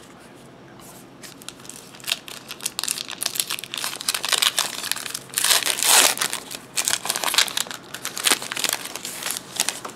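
Wrapper of a baseball card pack crinkling and tearing as the pack is opened by hand: an irregular run of crackles starting about a second and a half in, loudest about halfway through.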